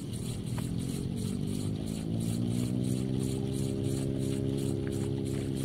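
A motor engine running steadily, its hum growing louder from about two seconds in with a slight rise in pitch as it draws nearer.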